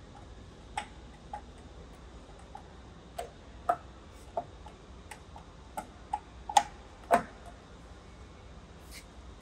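Irregular clicks and clacks of the feed-selector levers and knobs on a Csepel RF 50/1600 radial arm drill's head being shifted by hand while the machine stands still, about fifteen in all, the two loudest about six and a half and seven seconds in.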